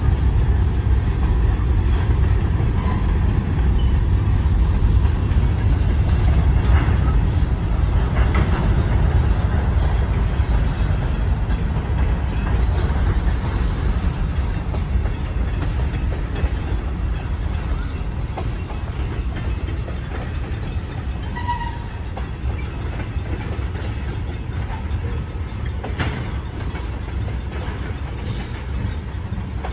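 Great Lakes Central Railroad freight train rolling past: covered hopper and tank cars rumbling steadily over the rails, with a few sharp wheel clicks and clanks. The rumble eases a little toward the end.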